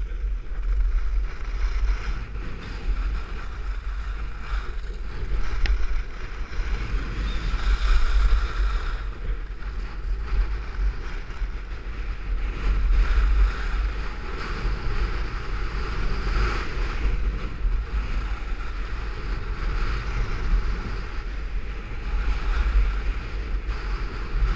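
Wind buffeting the microphone of a camera carried by a skier going downhill, a steady low rumble. Over it, the hiss and scrape of skis on packed snow swells and fades every few seconds with the turns.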